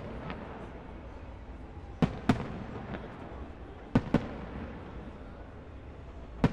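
Aerial firework shells bursting: sharp bangs in pairs about two and four seconds in, with another near the end, over a steady background noise.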